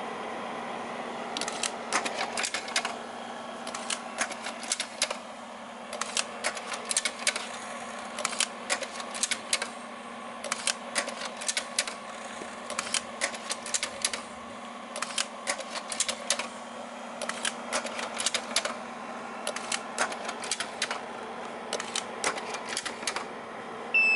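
Slide projector and camera fired in turn by an automatic trigger: about ten bursts of rapid mechanical clicking, one roughly every two seconds, as the projector changes each slide and the camera's shutter fires. A steady hum from the projector's fan runs underneath.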